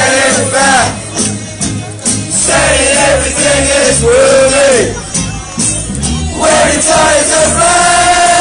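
Crowd of football supporters singing a chant together, with music carrying a steady beat underneath.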